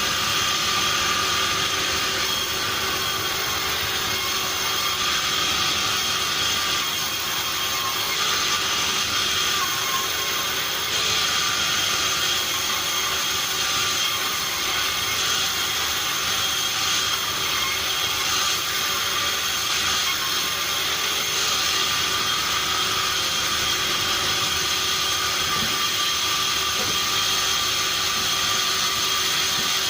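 Sawmill machinery running steadily and loudly, a dense mechanical noise with several high, steady whining tones and no breaks.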